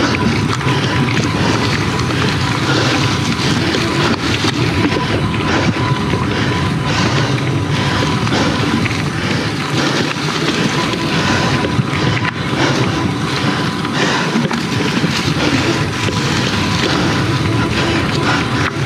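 Mountain bike being ridden over a rough trail: steady wind buffeting on the microphone and the bike rattling and knocking over bumps.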